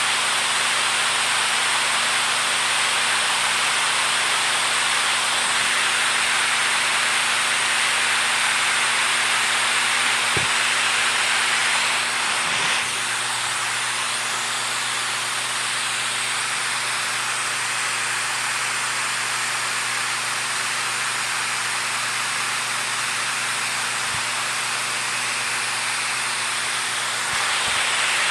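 Steady rush of flowing water, an even hiss. It drops slightly in level about twelve seconds in and comes back up near the end.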